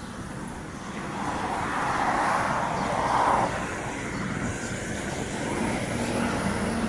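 Road traffic passing, including a semi-trailer truck: tyre and engine noise swells to its loudest about three seconds in, then eases off to a steadier hum.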